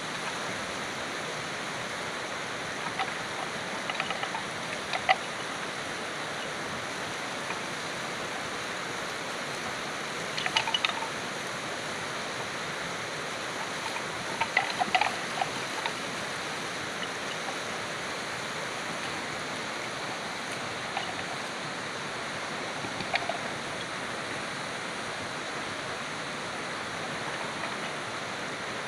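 Two young water buffalo butting heads, their horns knocking together in a few short clusters of sharp clacks. A steady rushing noise runs underneath throughout.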